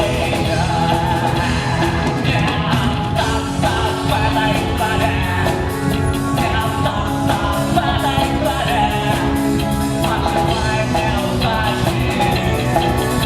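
Rock band playing a song with a singer: drum kit, guitar and vocals, loud and steady.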